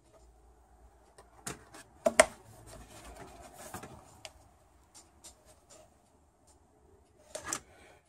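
Scattered light clicks and knocks of a hard plastic pump housing being handled and fitted back together, the sharpest about two seconds in and a short cluster near the end.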